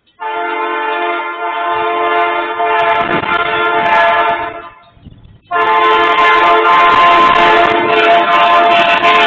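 A train horn sounds two long, loud blasts, each a steady chord of several tones, with a short break between them. A low rumble runs beneath the blasts from a couple of seconds in. The sound is picked up by a security camera's microphone, so it is muffled above the middle range.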